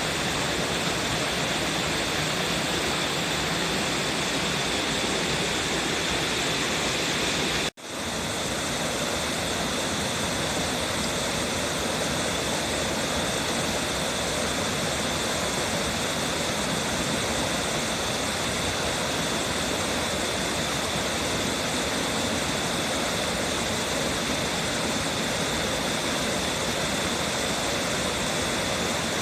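Waterfall rushing steadily. The sound cuts out for an instant about eight seconds in, then resumes unchanged.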